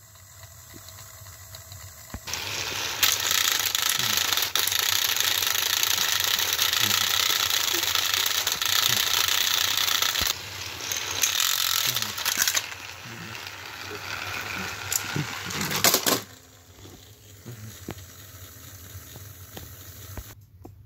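Two battery-powered toy train engines running head-to-head on plastic track, their motors and gears whirring and rattling as they push against each other. The sound starts about two seconds in and drops off suddenly about sixteen seconds in.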